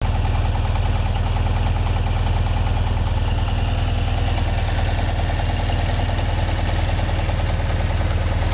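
1978 Volkswagen bus's air-cooled 2-litre fuel-injected flat-four idling steadily after about ten minutes' running.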